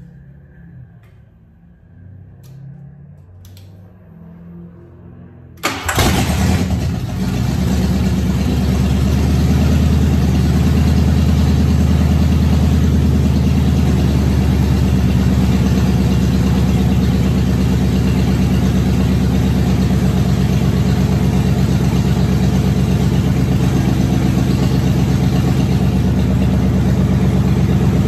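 Lincoln Mark VII's 5.0-litre small-block Ford V8 starting for the first time after years of sitting, on fresh fuel through a newly installed fuel pump. It fires suddenly about six seconds in, picks up over the next few seconds and settles into steady running.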